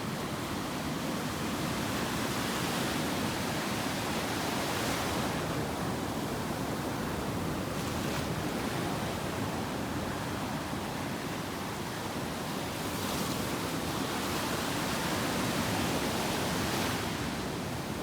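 Ocean surf breaking and washing up a sandy beach, a continuous rushing that swells louder a few seconds in and again near the end.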